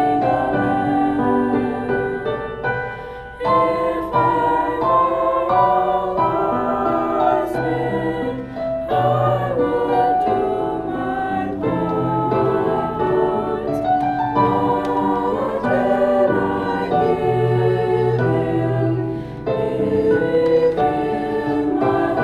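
Christmas music with choir voices over piano or keyboard accompaniment, the voices sustaining notes without words that can be made out.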